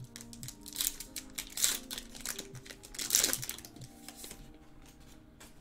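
Foil wrapper of a baseball trading-card pack crinkling as it is torn open by hand, in irregular bursts loudest about a second and a half in and again around three seconds. Soft background music plays underneath.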